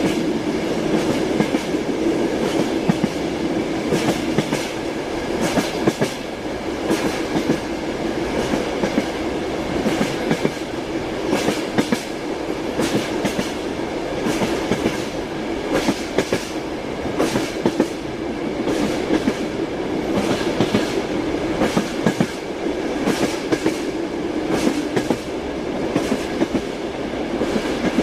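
Train wheels clattering over rail joints as the train runs along, with a continuous rumble and a steady hum under the repeated sharp knocks.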